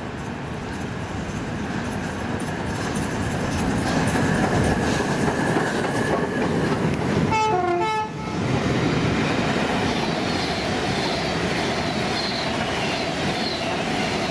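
A train running through the station, its rumble building over the first few seconds and staying loud, with wheels clattering over the rail joints. A short horn blast sounds about seven and a half seconds in.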